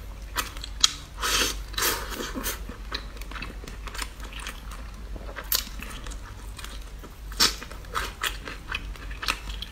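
Close-miked chewing and lip smacking of a mouthful of tender braised chicken leg: irregular wet clicks and short crunchy bursts, a few louder ones standing out.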